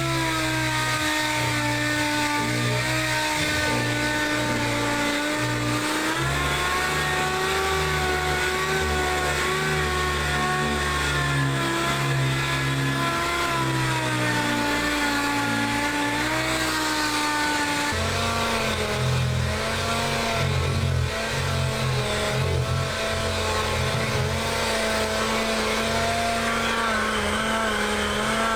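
Electric sander-polisher motor running continuously against an aquarium panel, its pitch wavering as pressure on the work changes, with clear shifts about six seconds in and again past the middle.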